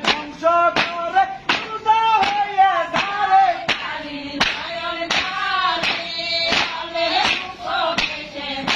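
Roof-beating work song: a group of voices sings while hand-held beaters strike the roof surface in unison, the strikes landing about every 0.7 seconds in time with the song.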